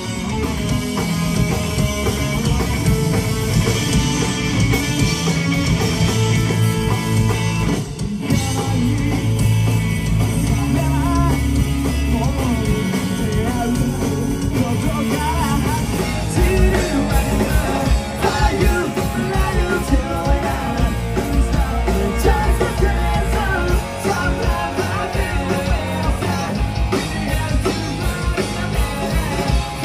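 Live punk rock band playing loud, with electric guitars, drums and shouted-sung vocals. The music dips briefly about eight seconds in.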